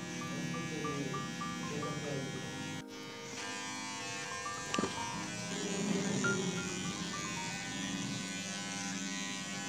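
Handheld electric beard trimmer buzzing steadily as it cuts beard hair, with a brief break about three seconds in.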